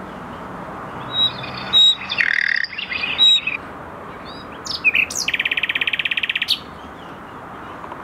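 Common nightingale singing: a few varied whistled and chirping phrases, then a rapid, even trill of one repeated note lasting just over a second, over a steady background hiss.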